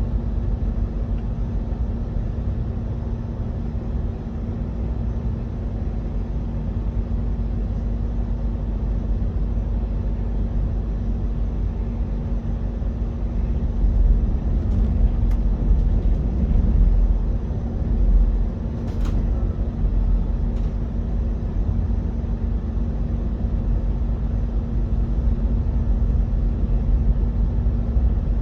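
KTX-EUM electric train running: a steady low rumble with a constant hum, and a few faint clicks about halfway through.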